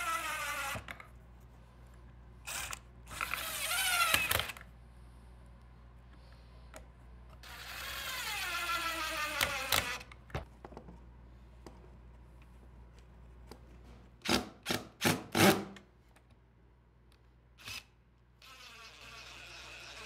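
Cordless drill driving fine-thread pocket-hole screws into walnut: its motor whines in short runs, about three seconds in and again from about seven to ten seconds, the second run falling in pitch. A few sharp clicks follow about fourteen to sixteen seconds in.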